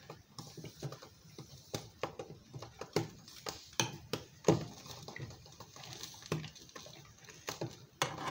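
A metal fork clicking and scraping against a pan while turning pieces of chicken frying in it: a run of irregular light taps and knocks.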